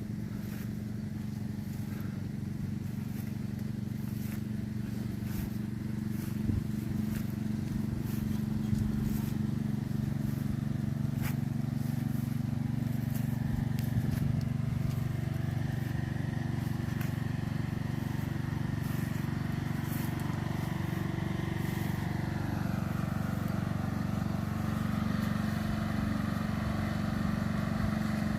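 A vehicle engine running steadily while driving along a road, a constant low hum.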